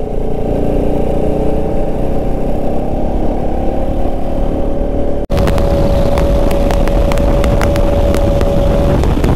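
Bajaj Pulsar RS200's single-cylinder engine running at a steady cruising pitch under way, with heavy wind noise on the microphone. About halfway through the sound cuts off for an instant and resumes on another stretch of riding, steadier in pitch and with more wind crackle.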